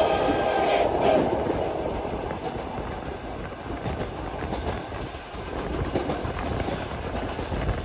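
Moving passenger train heard from inside the carriage: a steady rumble of wheels on the rails with a clickety-clack over the rail joints. A held pitched tone sounds at the start and stops about a second in.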